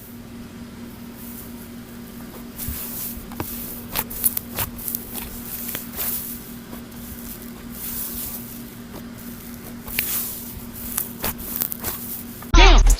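Slime being squished and worked by hand, making scattered sticky clicks and small bubble pops over a low hiss. Loud hip-hop music cuts in near the end.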